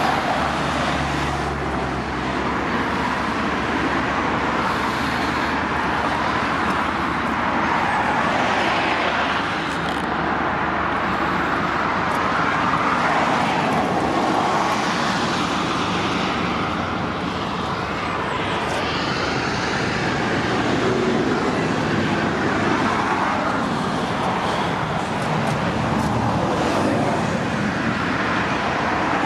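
Steady road vehicle noise, a continuous hum and rush that rises and falls slowly without breaks.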